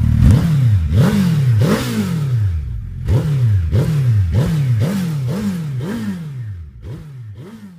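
Suzuki Hayabusa's inline-four engine, fitted with a Scorpion aftermarket slip-on exhaust, being revved in quick throttle blips, about one every half second or so. Each blip rises sharply in pitch and then falls back toward idle, and the sound fades out near the end.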